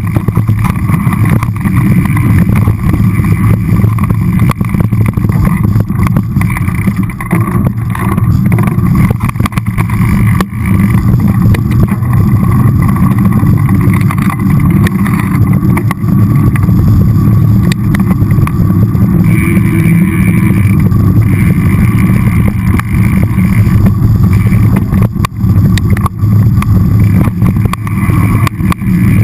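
Mountain bike rolling down a dirt singletrack, heard through a bike-mounted action camera: a loud, steady rumble of wind and trail vibration, with small knocks and rattles as the wheels run over rough ground.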